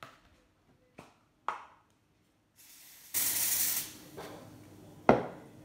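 A bowl being cleaned by hand: a few light clicks, a hiss of under a second about halfway through, and a sharp knock near the end.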